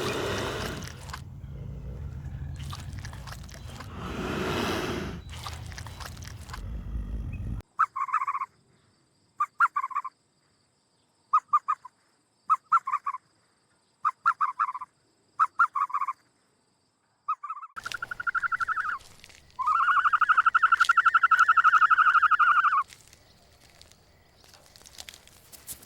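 Animal calls: first a noisy stretch with a low rumble, then a run of short calls coming in quick pairs about a second apart, then one long, even call lasting about three seconds.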